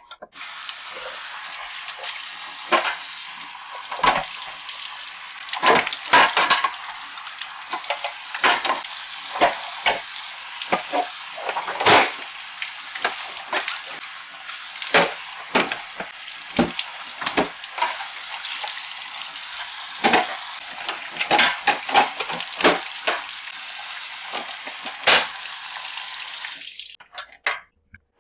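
Tap water running steadily into a sink, with repeated knocks and clatter of fridge shelves and bins being handled and rinsed in it. The water shuts off suddenly near the end.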